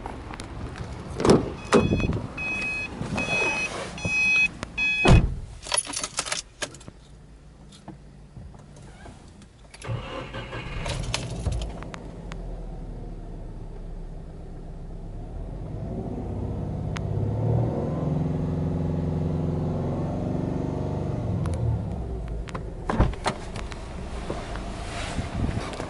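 A car's warning chime beeps evenly among door knocks. About ten seconds in, a Subaru Forester 2.0XT's turbocharged 2.0-litre flat-four starts and settles to a fast idle near 1,800 rpm. From about fifteen seconds it is revved in one long swell that rises, holds and falls back to idle, and a door thumps near the end.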